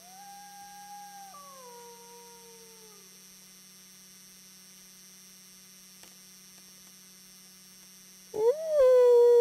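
A wolf howls, one long call of about three seconds that steps down in pitch and fades. After a pause, a second, much louder and steadier howl begins near the end. A steady low hum runs underneath.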